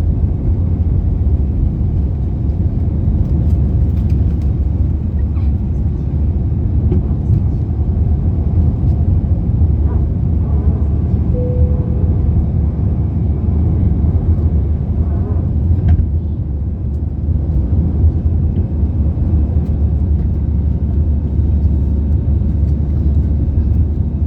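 Steady low rumble of an Airbus A320-200 cabin in flight: airflow and engine noise. There is a short steady tone a little before the middle.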